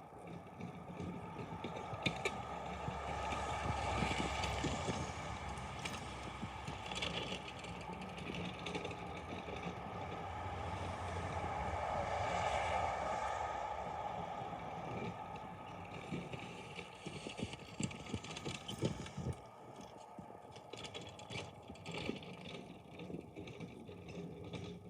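A vehicle pushing a snow plow: its engine running under load with a noisy rush that swells twice, then eases off, with scattered knocks and clatter.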